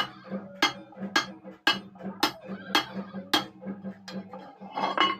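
A hand hammer striking iron in steady, sharp blows, about two a second, each with a short metallic ring; the blows stop after about three and a half seconds.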